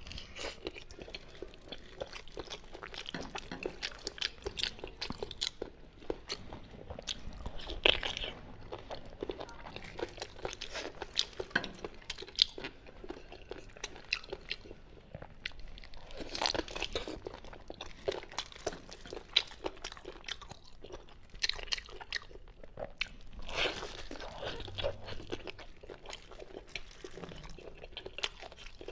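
Close-miked chewing of braised pig's ear, its cartilage crunching in irregular crackles, with louder bursts of biting about 8, 16 and 24 seconds in.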